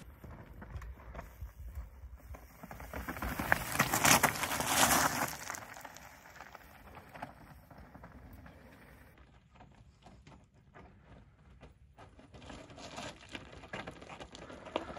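Mountain bike tyres rolling over a loose rocky gravel trail, crunching and clattering with many small knocks from stones, and a louder rushing swell of air about four seconds in.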